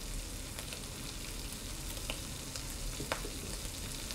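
Torn corn tortilla pieces and smoked ham frying in a skillet: a steady sizzle with scattered small crackling pops, one sharper pop about three seconds in.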